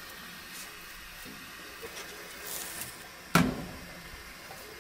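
The glass-and-stainless-steel door of a bread oven shutting with one sharp metal clunk a little after three seconds in, after a few faint handling clicks.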